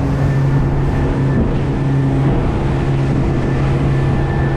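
Boat engine running steadily, a constant low drone with no change in pitch.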